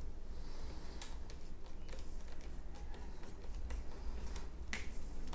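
Scattered light clicks and taps of hands and a small tool working on a road bike's front rim-brake caliper and its cable pinch bolt, over a steady low hum.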